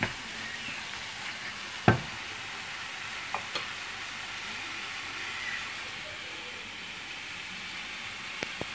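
Tomato-chilli sauce with diced bell peppers sizzling steadily in a non-stick frying pan as it cooks down. A wooden spatula knocks against the pan a few times, the loudest knock about two seconds in.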